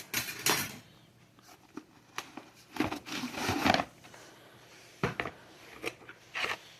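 Metal hand tools being handled, clinking and knocking as they are set down one by one, with a longer rattling scrape about three seconds in.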